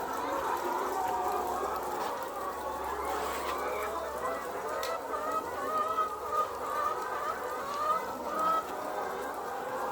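A flock of commercial laying hens clucking and calling over one another, with a few louder, drawn-out calls in the second half.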